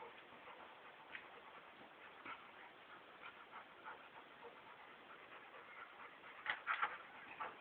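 Two dogs play-wrestling: faint scuffling and short sounds, with a louder flurry of them near the end.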